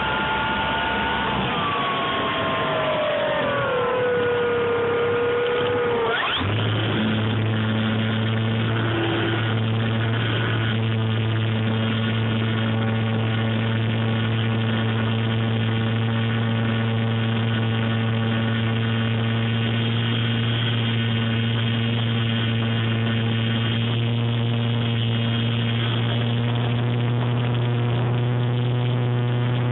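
Electric RC warbird's brushless motor and propeller heard from the onboard camera. For the first few seconds its whine glides down in pitch as the motor slows. About six seconds in it switches to a loud, steady droning hum that holds.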